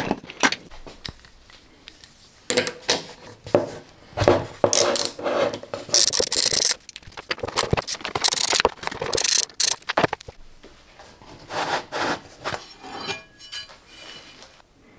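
Irregular scraping and rubbing with knocks and clinks as parts of an old planer-thicknesser are worked loose and taken off. Loudest about halfway through, with a few faint metallic rings near the end.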